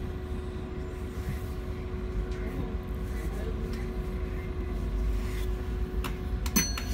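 Steady low rumble of a bus engine running, heard from inside the bus with a constant hum over it. A few sharp clicks come near the end.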